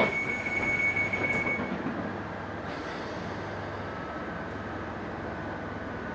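Interior of a London Underground 1995 Stock train at a station: a high steady tone stops about two seconds in, and the car's noise drops to a steady, quieter hum.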